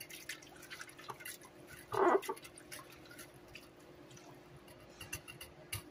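Silicone whisk stirring thin gravy liquid in a slow cooker's crock: faint light splashing and many small ticks of the whisk against the crock, over a faint steady hum. A brief louder sound comes about two seconds in.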